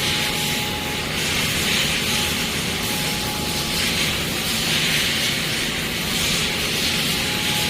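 Doosan Puma MX2600ST multitasking CNC lathe running: a steady, loud rushing hiss that swells and eases slightly, with a faint thin whine beneath it.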